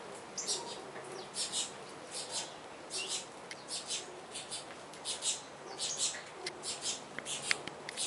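A flock of saffron finches chirping while feeding on the ground: many short, high chirps, a few each second, some overlapping.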